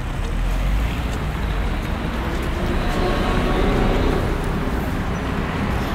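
City street traffic: a steady wash of passing cars and buses, swelling a little around the middle.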